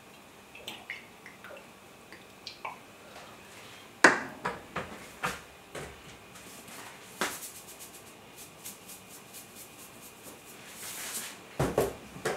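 Kitchen handling sounds: a sharp knock about four seconds in, then scattered small clicks and taps of glass and utensils on the counter, with a short hiss and another knock near the end.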